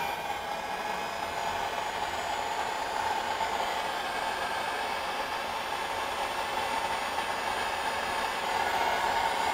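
Electric heat gun running steadily, its fan blowing hot air onto heat-shrink tubing over a cable joint to shrink it down.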